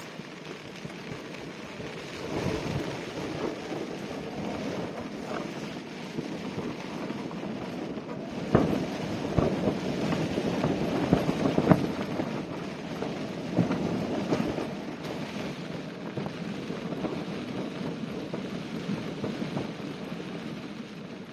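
Strong wind gusting against a tent, a steady rush that swells and eases. There are a few sharp bangs about halfway through.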